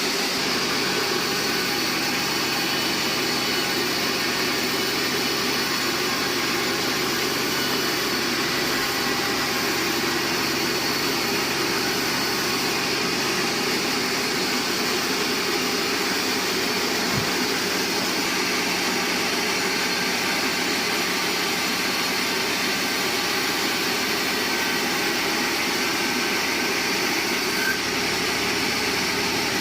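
Band sawmill running steadily as it saws a large bayur log, a constant machine hum and blade noise with no pauses.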